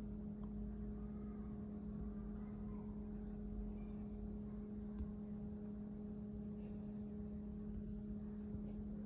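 A steady mechanical hum over a low rumble, with one faint click about five seconds in.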